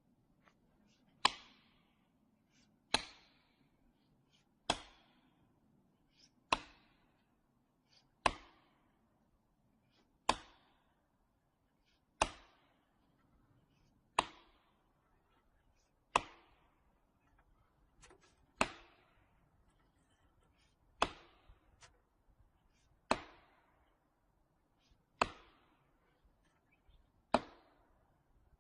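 Heavy tool blows striking wood, about one every two seconds, each sharp and ringing briefly, in a steady working rhythm.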